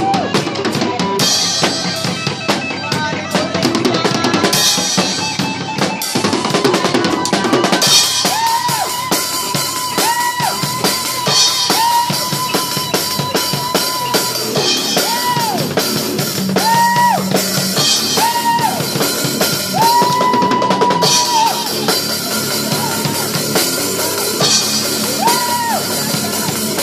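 A band jamming live: an acoustic drum kit played busily, with bass drum, snare and cymbals, under electric guitar and bass guitar. From about 8 s in, long held high notes ring out over the drums again and again.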